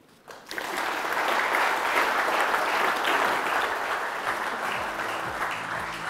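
Audience applauding. It starts about half a second in and slowly dies down near the end.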